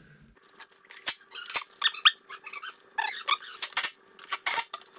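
Irregular sharp metal clicks and clinks, with a brief high squeak about half a second in, from screws being handled and fitted to a cordless drill's bit while bolting an ATV's skid plate back on.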